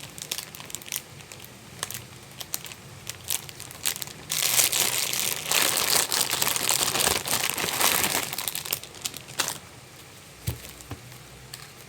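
Packaging crinkling and tearing as a gift is worked open by hand, with scattered crackles and a louder stretch of continuous crinkling from about four to nine and a half seconds in.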